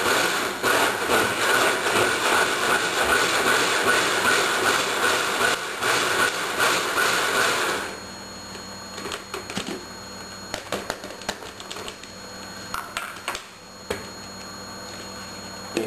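Electric countertop blender running, puréeing a salsa of tomatoes, onion, jalapeños and cilantro. It is switched off suddenly about eight seconds in, and a few light clicks and knocks follow.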